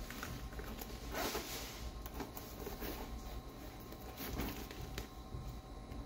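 ARMR Moto Raiden 2 leather motorcycle trousers being handled and turned over in the hands: irregular rustling and brushing of the leather, louder about a second in and again after about four seconds.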